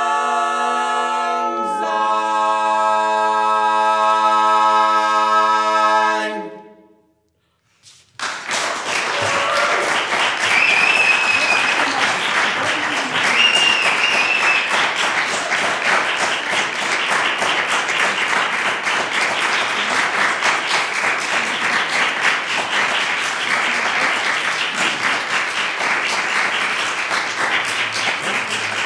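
A cappella barbershop quartet of three women and one man holding the final chord of a song, shifting to a new chord about two seconds in and fading out about six seconds in. Then an audience applauding steadily.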